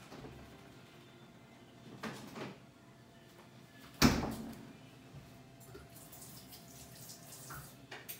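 A sharp household knock about four seconds in, the loudest thing here, dying away over half a second, with a softer scrape-like noise about two seconds in.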